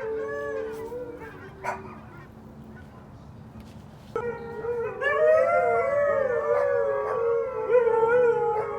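Huskies howling: a short wavering howl at the start, then about four seconds in a louder, longer stretch of two or more overlapping howls that waver up and down in pitch.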